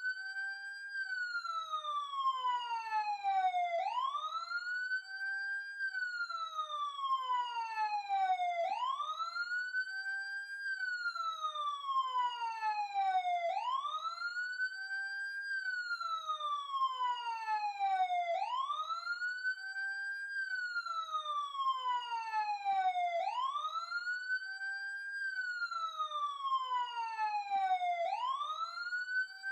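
Police siren sounding a slow wail: each cycle rises quickly in pitch, holds briefly at the top, then falls slowly, repeating about every five seconds.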